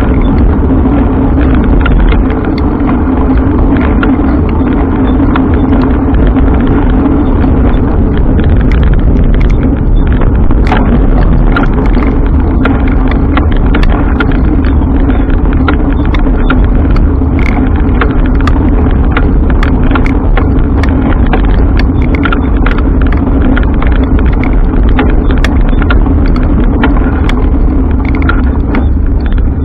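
Steady, loud riding noise from a bike on the road: a deep rumble with a steady hum, and frequent small clicks and rattles throughout.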